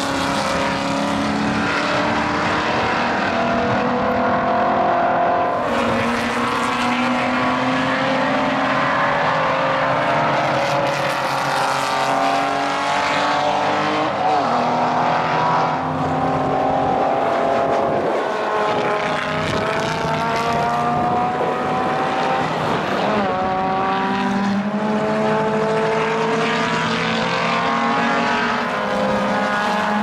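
Historic racing cars accelerating away one after another, several engines running at once, their pitch climbing and dropping back at gear changes.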